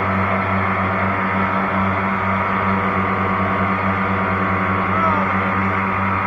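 Boat motor running steadily at a constant speed, with a rapid low pulsing drone.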